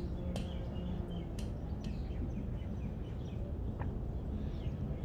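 Outdoor beach ambience: a steady low rumble with a few short, high bird chirps scattered through it.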